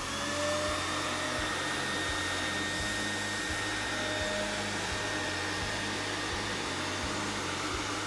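Hoover C2401 backpack vacuum cleaner running steadily: a high motor whine over the rush of suction as its bare-floor tool picks up loose grit from a tile floor.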